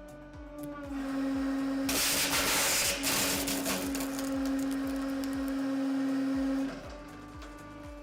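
Hydraulic press motor humming under load as it crushes candles, with a loud burst of crushing noise from about 2 to 3 seconds in; the hum drops slightly in pitch and grows louder about a second in and eases off near the end.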